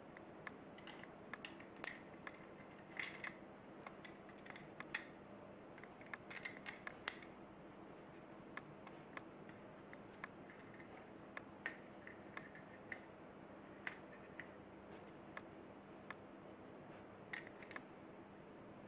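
Irregular small clicks and clatters of copper contact strips and a hard black plastic housing being handled and fitted together while a service fuse connection block is reassembled, some clicks coming in quick little clusters.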